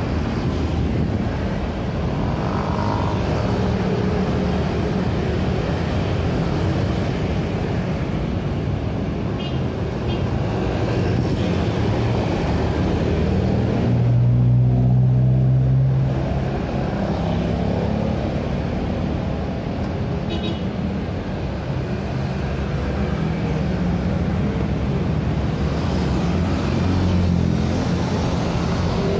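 Busy city street traffic: a continuous stream of motorcycles and cars passing close by, with a steady engine hum. About halfway through, a van passes very close and its engine hum is the loudest sound.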